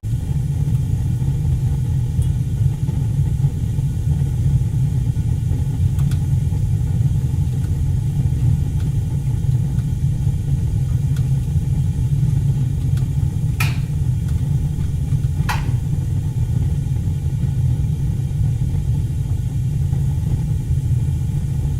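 Room tone: a steady low rumble that fills the room, with two short sharp clicks a little past halfway, about two seconds apart.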